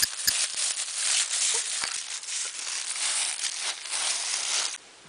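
Dense crackling, rustling noise with many scattered clicks. It cuts off abruptly near the end.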